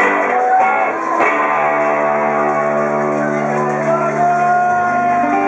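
Band music led by electric guitar, with long held notes and chords ringing on.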